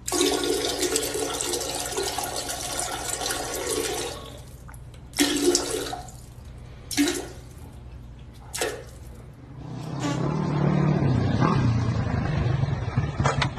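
Toilet flushing: a loud rush of water for about four seconds, then three short gurgling bursts as it drains.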